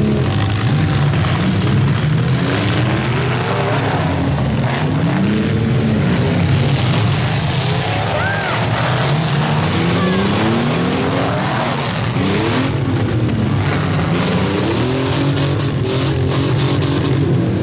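Several demolition derby cars' engines revving and running at once, their pitches rising and falling over one another, with a few sharp crunching impacts as the cars ram each other.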